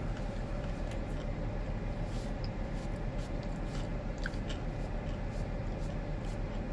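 Steady hum inside a parked car's cabin, with a few faint clicks and small eating noises.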